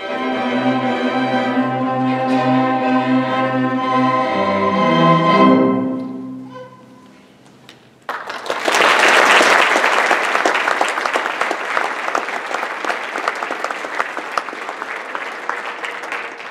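String orchestra of violins, cellos and double bass playing the closing bars of a piece, the low notes stepping down and the final chord dying away about six seconds in. After a short hush, the audience breaks into applause about eight seconds in.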